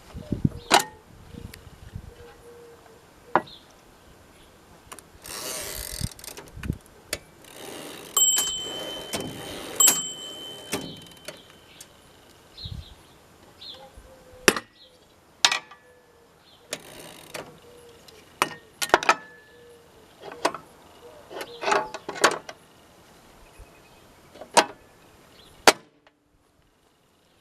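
1963 Royal Empress manual typewriter being worked: irregular sharp strokes of keys and levers, two stretches of sliding mechanical noise, and a ringing ding near the middle that hangs on for a few seconds.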